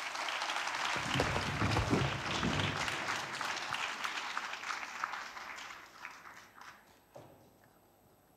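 An audience applauding, dense clapping that thins out and dies away about seven seconds in. There is a low rumble under it for a couple of seconds near the start.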